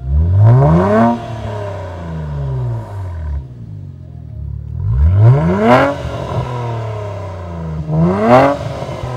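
A 2016 Infiniti Q50's twin-turbo V6, fitted with AMS 3-inch downpipes, is revved three times: at the start, about five seconds in and about eight seconds in. Each rev rises sharply, then falls back to a steady engine note, and the exhaust is loud.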